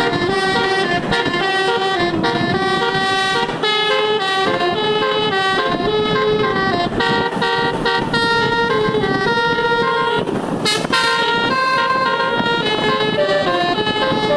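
A bus's telolet horn, a multi-tone air horn, playing a run of melodies, with every tone switched on: clear steady notes stepping quickly from pitch to pitch. A brief burst of hissing noise about ten seconds in.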